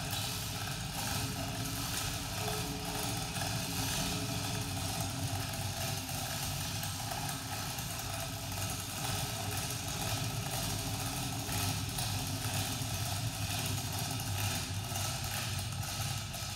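Overhead electric chain hoist running steadily under load, lifting a 32-foot aluminum boat hull.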